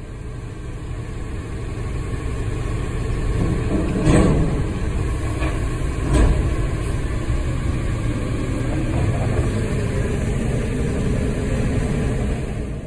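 Heavy engine of container-port machinery running steadily, growing louder over the first few seconds, with two loud bangs about two seconds apart.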